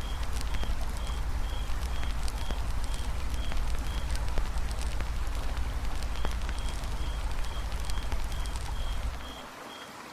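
Campfire crackling with frequent small pops over a river's steady low rush. A high-pitched chirp repeats about twice a second, pausing briefly midway. The low rumble drops away about nine seconds in.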